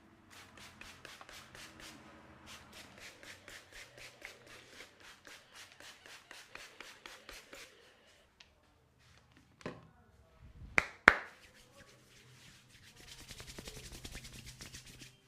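Hands tapping and chopping on a head during a massage: rapid, even strokes at about five a second, which pause partway through and come back faster near the end. About eleven seconds in come two loud, sharp cracks.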